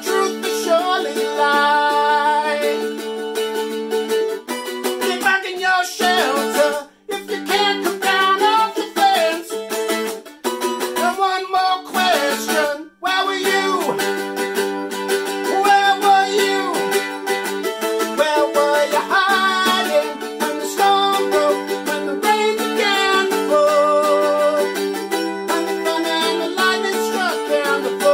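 Mandolin strummed in steady chords while a man sings along, with two brief breaks about seven and thirteen seconds in.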